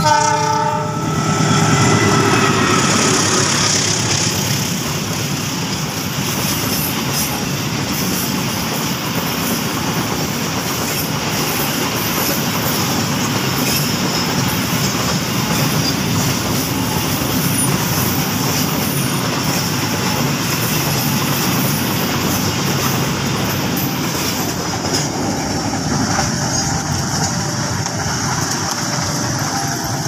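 Horn of a CC 206 diesel locomotive, ending within the first second or two. A container freight train then passes close by, and its wagons' wheels make a long, steady, loud noise on the rails. The sound thins somewhat about five seconds before the end.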